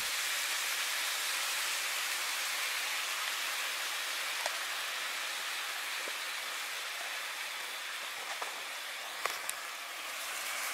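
Fried rice sizzling steadily in a frying pan on a propane camp stove, just after honey garlic sauce has been poured in, with a few faint pops. The sizzle eases slightly as it goes.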